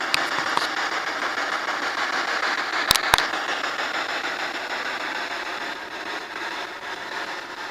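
Handheld ghost-hunting spirit box sweeping through radio frequencies: a steady hiss of radio static broken by a few sharp clicks, two of them loud about three seconds in.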